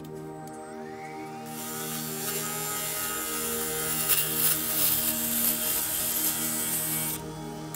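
Wood lathe coming up to speed with a rising whine, then a bowl gouge cutting the outside of a dried cherry bowl, a loud steady scraping shear of wood shavings from about a second and a half in that stops shortly before the end.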